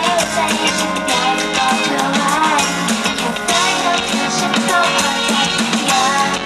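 Live pop-rock song played through the stage PA: a female singer's voice over a band with electric bass guitar and drum kit.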